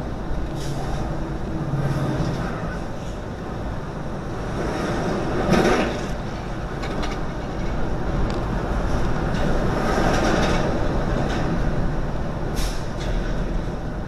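Road and engine noise of a semi truck driving, heard from inside the cab, with a steady low hum. Scattered short knocks and rattles come through it, the loudest about five and a half seconds in.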